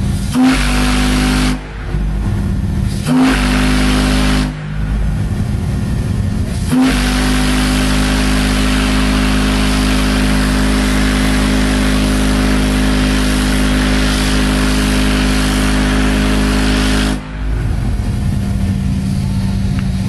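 Home-built steel organ-pipe steam whistle with an 8-inch by 72-inch bell, sounding a very deep bass note low enough to be felt as much as heard. It gives two short blasts, then one long blast of about ten seconds, each sliding up briefly as it starts. A steady rumble fills the gaps.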